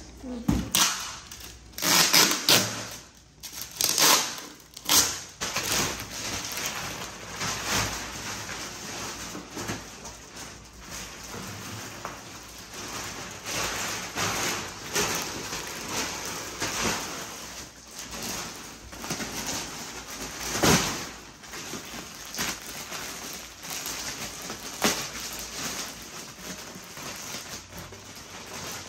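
Plastic wrapping and cardboard rustling and crackling as a compressed, roll-packed mattress is pulled from its carton and unwrapped. There are several louder bursts of crackling and bumping in the first five seconds and one more about three-quarters of the way through.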